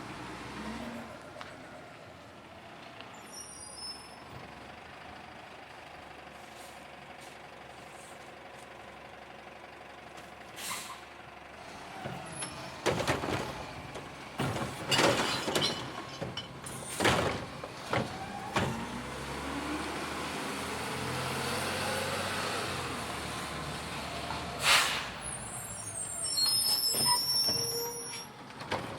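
Garbage truck collecting trash: the engine runs steadily, then from about halfway a series of loud bangs and clanks comes from the bin being emptied. A rising whine follows, then one loud bang, and near the end a high hiss of air with squeals.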